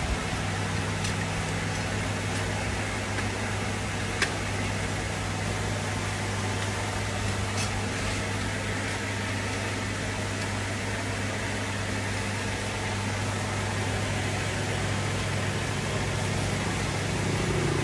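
Steady low mechanical hum of the motor turning a whole pig on a charcoal roasting spit, with a few faint ticks.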